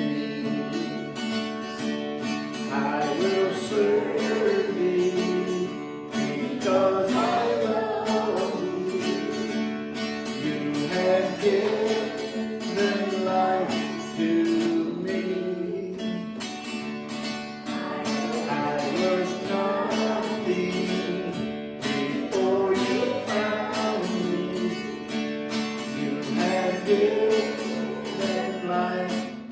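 Worship music: an acoustic guitar strummed in a steady rhythm under a wavering melody line.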